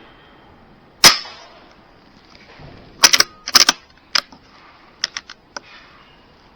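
A single sharp crack from a BSA Super10 .22 air rifle about a second in, with a short ringing tail in the shed. About two seconds later come a quick cluster of loud clicks and then a few fainter, spaced clicks.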